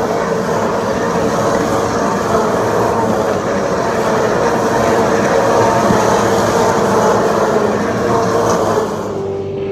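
A stream of Supercars racing past one after another at full speed, their 5.0-litre V8 engines making a continuous, layered engine sound. The sound thins abruptly near the end.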